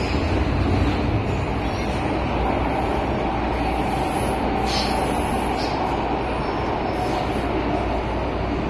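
MTR Tsuen Wan line electric train running through its tunnel, heard from inside the carriage: a steady rumble of wheels and track with a faint, even whine from the traction motors.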